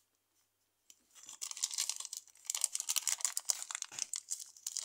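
Crinkling, crackling rustle of hands working a piece of modelling clay, starting about a second in and going on in quick irregular crackles.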